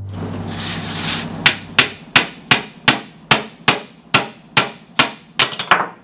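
Wooden mallet pounding a wooden peg ball on a toy pounding bench: a brief scraping rustle, then about a dozen even knocks, roughly three a second, until the ball is driven through its hole. A faint high ring from the bench's metal xylophone keys comes near the end.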